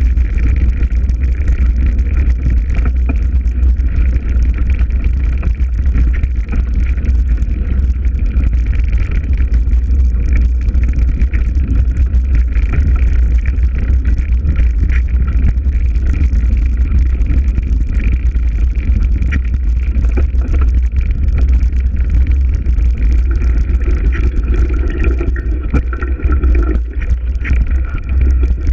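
Breeze through trees, buffeting the microphone with a heavy, steady low rumble.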